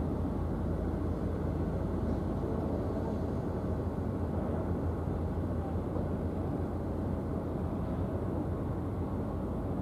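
Steady low rumble of a Red Funnel car ferry under way across the water, with no distinct events, cutting off abruptly near the end.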